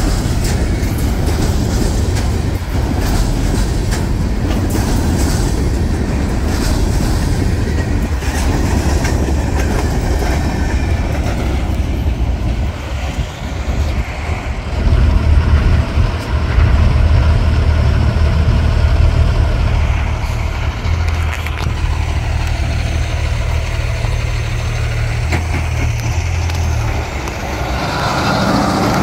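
A Norfolk Southern freight train of trash cars rolling past, its wheels clattering on the rails for the first dozen seconds until the rear of the train goes by. After that a heavy truck's diesel engine idles with a steady low drone that stops shortly before the end.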